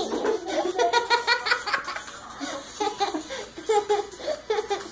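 A person laughing and giggling in a string of short, repeated bursts.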